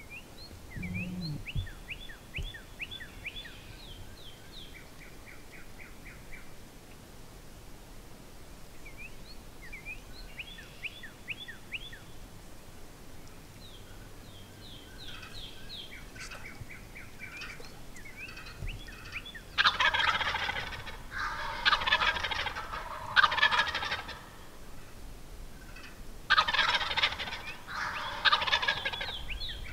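Wild turkey gobblers gobbling loudly, three gobbles in quick succession about two-thirds of the way in, then three more near the end. Before them, faint, quick, high-pitched calls from smaller birds.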